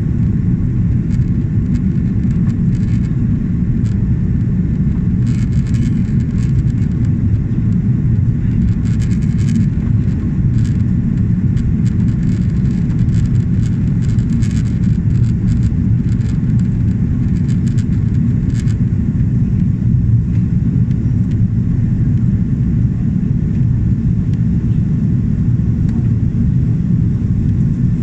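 Steady low rumble inside a jet airliner's cabin during the climb after take-off: engine noise and airflow heard from a window seat. Faint scattered clicks come and go in the middle stretch.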